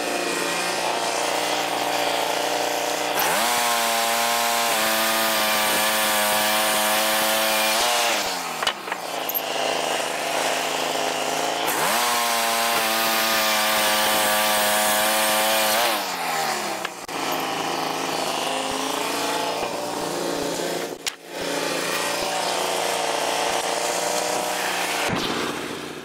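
Wood-Mizer LT15 band sawmill's gasoline engine running at idle and twice revved up to drive the band blade through the log, each time holding high for about four seconds with a sawing hiss before dropping back to idle.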